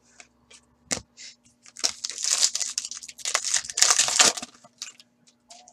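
A hockey card pack's shiny wrapper being torn open and crinkled by hand: a sharp tap about a second in, then two bursts of crackling and tearing around two and four seconds in.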